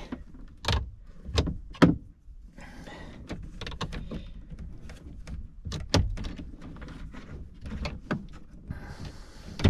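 Irregular sharp clicks and knocks of a ratcheting wrench and metal fittings being handled while a brass air-line fitting on a truck's dash air valve is tightened by hand.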